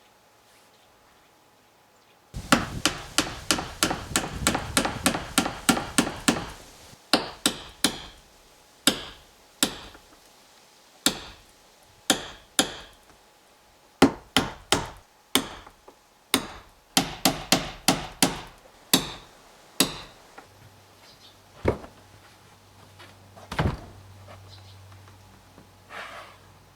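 Hammer blows on wood as moulding trim is fastened to a wooden door: a fast run of light strikes, about four or five a second, for some four seconds, then slower strikes in short groups, thinning out to a few single knocks near the end.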